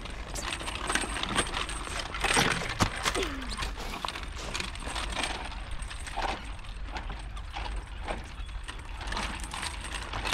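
Irregular clattering knocks and taps over a steady low hum, with a brief faint voice about three seconds in.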